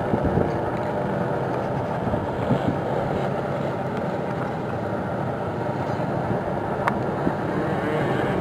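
Steady vehicle engine noise heard from inside a vehicle's cabin, with one sharp click about seven seconds in.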